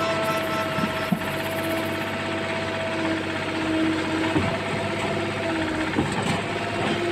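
Old Kobelco mini excavator's diesel engine running steadily.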